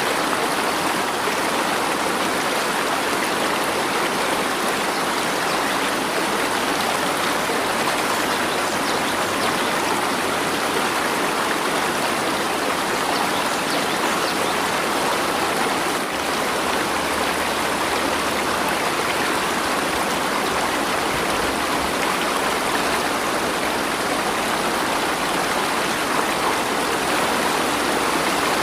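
Flowing water rushing steadily and evenly, like a stream.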